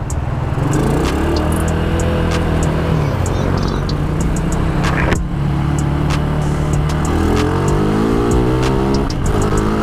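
Motorcycle engine running through a newly fitted full-system exhaust with a silencer, its revs rising, holding and dropping back several times. A music beat plays faintly underneath.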